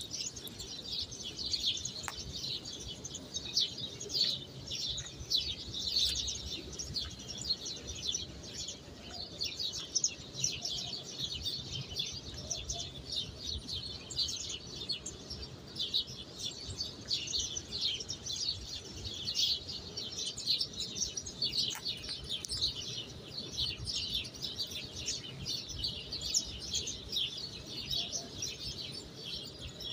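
A dense chorus of many small birds chirping continuously, short high chirps overlapping without a break.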